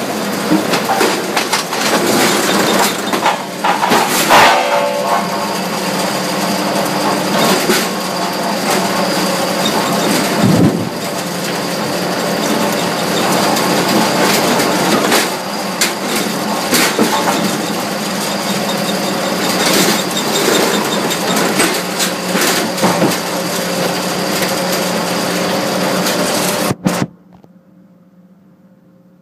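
Mobile Cambio ring debarker running with logs going through: a dense, steady machine noise with frequent knocks and bangs of wood. It cuts off suddenly near the end, leaving only a faint low hum.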